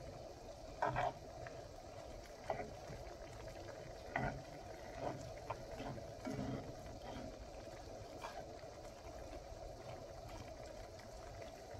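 Pan of flour-thickened onion-and-pepper gravy at a low boil, bubbling steadily, with scattered short pops every second or two.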